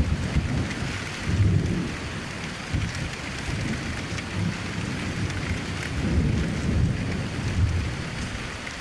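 Steady rain pattering against a window, with a low rumbling underneath that swells and fades several times and eases off near the end.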